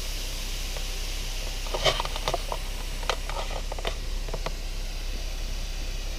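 Steady engine and road noise inside a car's cabin while driving, with a scatter of short clicks and ticks about two to four and a half seconds in.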